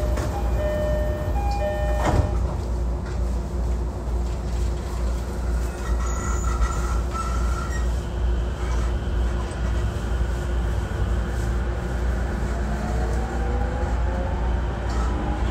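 Onboard sound of a JR Musashino Line electric commuter train: a steady low rumble of the running train, with a few short tones and a sharp clunk about two seconds in. Near the end a whine from the traction motors rises in pitch as the train speeds up.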